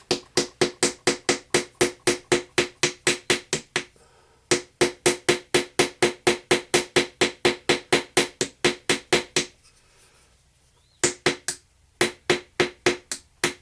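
Small hammer tapping a chisel rapidly into a crumbly treasure dig block, about five strikes a second, each with a short ring. The taps come in runs, broken by a brief pause about four seconds in and a longer one near the ten-second mark.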